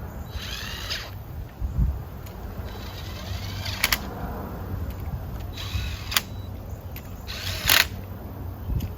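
A power tool spinning lug nuts onto the wheel studs in four short bursts, each whirring up and down in pitch, with a few sharp clicks between them.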